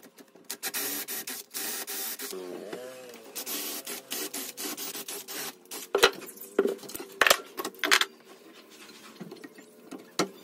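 Makita cordless drill boring dowel holes into pallet wood through a dowel jig, in two runs of drilling. These are followed by several sharp knocks of wood and tools being handled, with one more near the end.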